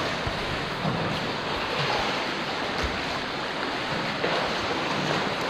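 Seawater sloshing and lapping against the rock walls of a sea cave, a steady wash with a few small splashes and taps.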